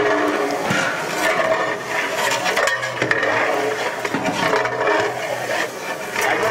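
A long metal ladle scraping and stirring mutton, onions and oil inside a large aluminium cooking pot, with irregular clicks of metal knocking on the pot.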